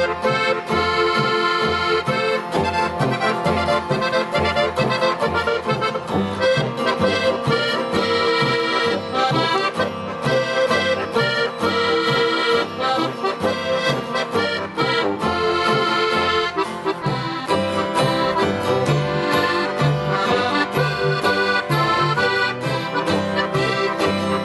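Alpine folk music played live without singing, led by a Steirische Harmonika (diatonic button accordion). Acoustic guitar, a brass horn and a plucked double bass keep a steady, even beat underneath.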